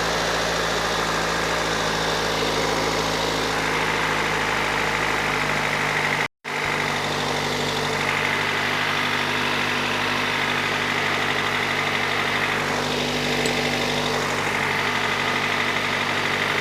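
A 2005 Toyota Corolla's 1.8-litre four-cylinder engine idling steadily. The sound cuts out completely for a moment about six seconds in.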